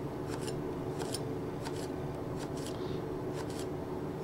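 Global GS1 utility knife slicing through a sweet pepper onto a cutting board: a quick run of crisp cuts, about two a second.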